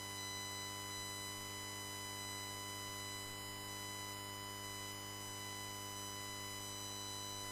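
Steady electrical hum with a high buzz above it, unchanging throughout.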